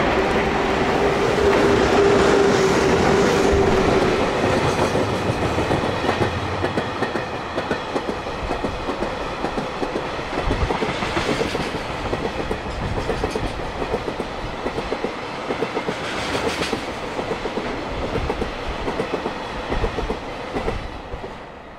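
EH200 electric freight locomotive passing with a steady whine for the first few seconds. A long train of tank wagons and tank-container flatcars follows, clattering rhythmically over the rail joints. The sound falls away at the very end as the last wagon goes by.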